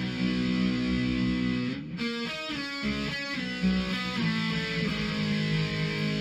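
Background music led by guitar, with held notes and a short run of quicker notes about two seconds in.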